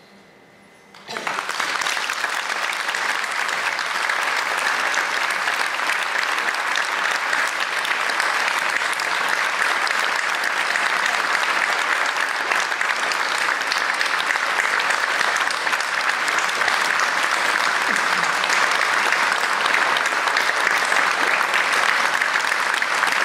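Concert-hall audience applause breaking out about a second in, after a brief hush as the wind band's final note dies away, then keeping up steadily.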